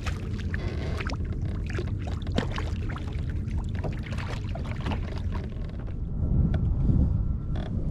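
A hooked fish thrashing and splashing at the surface beside a kayak for about six seconds, over a constant low rumble that swells briefly near the end.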